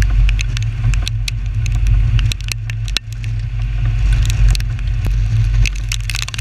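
Storm-chasing vehicle driving on a rural road: a steady deep road and wind rumble, with scattered sharp clicks and taps.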